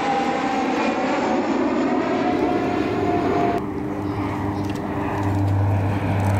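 Three Kawasaki T-4 jet trainers passing overhead in formation: a loud jet rush with a thin whine falling slowly in pitch. About three and a half seconds in, it cuts abruptly to the steady low drone of an E-2C Hawkeye's twin turboprops.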